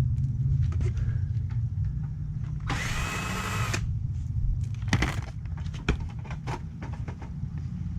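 Workshop sounds: a steady low hum, a one-second mechanical whir about three seconds in, and a few short clicks and knocks after it.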